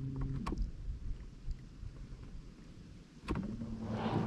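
Light handling noises aboard a kayak: a few sharp knocks and clicks over a quiet low rumble, with a steady low hum that fades in the first half second and comes back about three seconds in.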